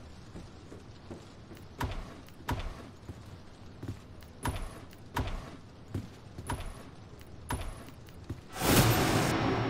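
Footsteps at a steady walking pace, sharp knocks about every two-thirds of a second, then a loud rustling clatter near the end that fades slowly.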